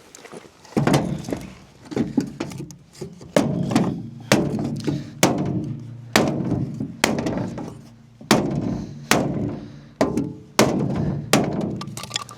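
Hammer blows on a welded aluminum tractor canopy frame, being bent back into shape. About a dozen strikes come roughly one a second, each with a short metallic ring.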